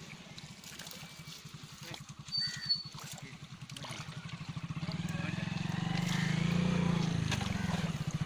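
Fishing boat's engine running with a steady low throb, growing louder from about four seconds in.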